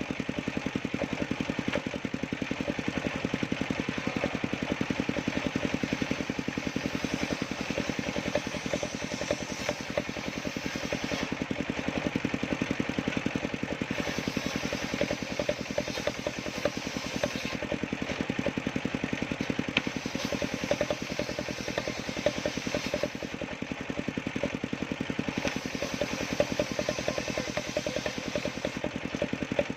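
Engine of a homemade sawmill running steadily at a constant speed, with a fast even pulse.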